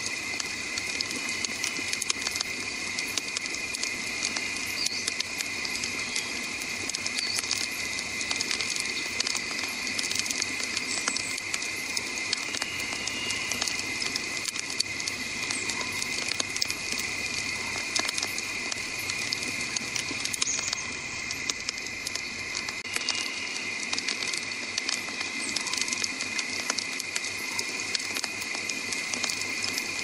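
Wood campfire crackling, with a dense run of small sharp pops and snaps over the steady rush of the flames.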